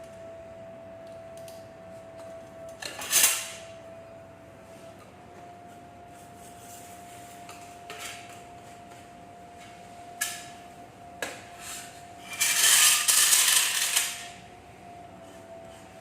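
Clicks and clatters of small parts being handled and fitted together during hair dryer assembly, over a steady high hum. Near the end a loud rushing noise lasts about a second and a half.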